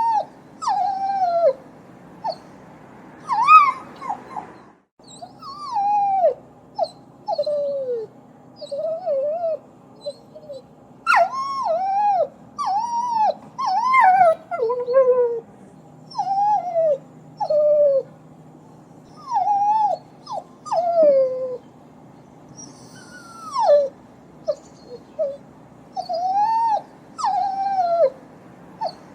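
A dog whining and whimpering: a string of short, high cries, most of them falling in pitch, coming in clusters with short pauses between, over a faint steady hum.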